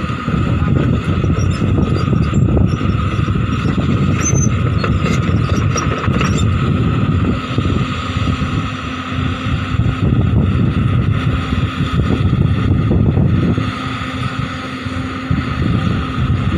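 Large Hyundai hydraulic excavator's diesel engine running steadily, a dense low rumble with a steady whine over it.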